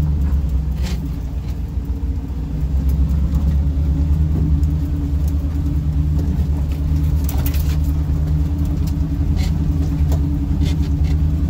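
LS-swapped 1969 Nissan Patrol G60's GM V8 engine running steadily at low revs while crawling along a rough dirt trail, with a low drone throughout. Occasional brief knocks and rattles from the truck over the rough ground.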